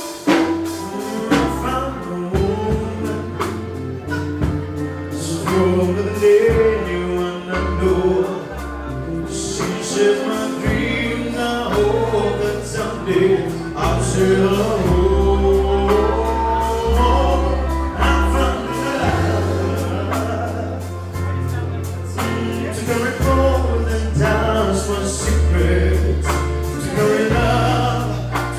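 Live band music: a man sings a melody into a microphone over a drum kit, guitars and keyboards, with a steady low bass line and regular drum beats.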